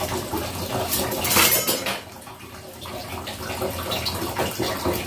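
Water running and splashing in a kitchen, loudest about a second and a half in, then quieter for the rest.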